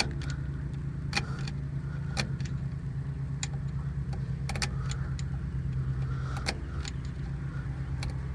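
Sharp, irregular metallic clicks and scrapes of a flat-blade screwdriver turning the star wheel down inside an open Bosch VE injection pump on a 1991.5 Cummins, over a steady low mechanical hum.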